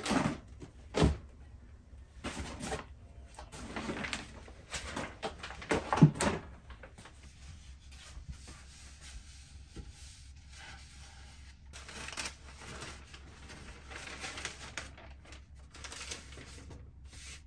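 Handling noises: grocery packages set down and moved about with a few sharp knocks in the first half. Later, softer rustling as a sheet of kitchen paper is pulled from its roll and spread over a wooden cutting board.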